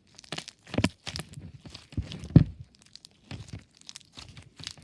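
Slime with foam beads (floam) being squeezed and kneaded by hand, giving a run of irregular crunchy crackles and pops, the loudest about a second in and again a little after two seconds.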